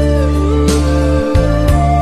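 Music with a heavy, steady bass, a melody that slides up and down in pitch, and two drum hits about a second apart.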